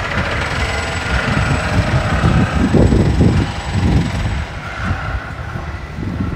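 Wind buffeting the microphone: an uneven low rumble that swells in gusts, strongest in the middle.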